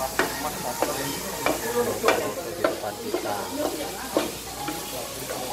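Meat and vegetables sizzling in a large shallow pan on a tabletop burner as two spatulas, one wooden and one plastic, toss and scrape them. Sharp scrapes against the pan come roughly every half second to second over the steady sizzle.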